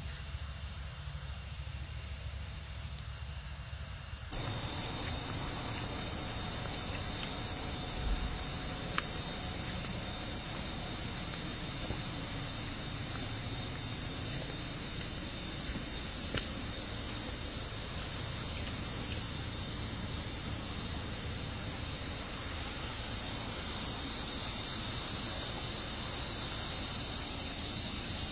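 Cicadas in a steady, high-pitched chorus, starting abruptly about four seconds in, over a faint low rumble.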